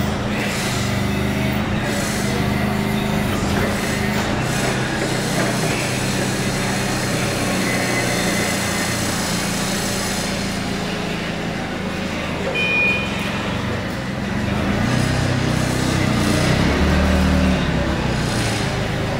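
Propane-fuelled CAT GC30K forklift's engine running as the truck is driven and turned, picking up revs and getting louder from about fifteen seconds in. A short high beep sounds near the middle.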